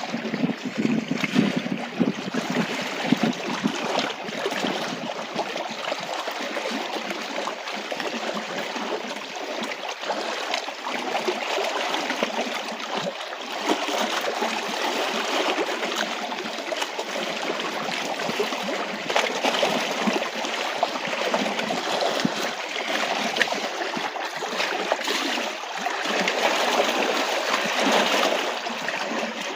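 Small waves lapping and splashing against a rocky Canadian Shield shoreline: a continuous wash of water broken by many small splashes, with the loudness rising and falling gently.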